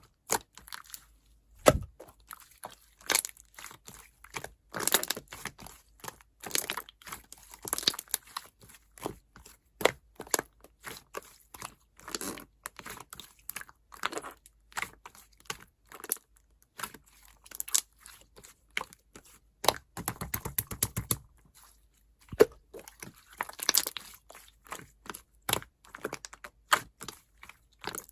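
White Elmer's-glue slime being squished, pressed and stretched by hand, making irregular sticky pops and clicks with a few denser crackling stretches.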